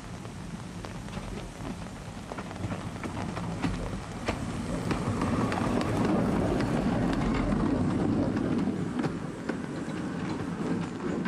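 A small narrow-gauge steam tank locomotive running past on 19-inch gauge track with its carriage, a steady rumble scattered with small sharp clicks. It grows louder about halfway through as the engine comes level and eases off as the carriage goes by.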